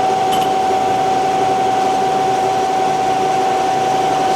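Bridgeport Series I vertical milling machine's head running its spindle in high range with the power quill feed raising the quill: a steady, unchanging whine over a mechanical hum.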